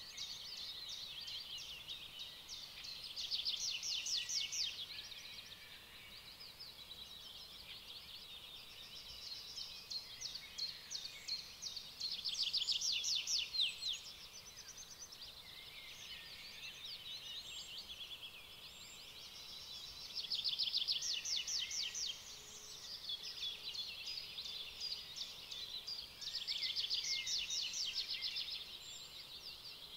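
Birds singing: fast trills of quickly repeated high notes, swelling into louder bursts every several seconds.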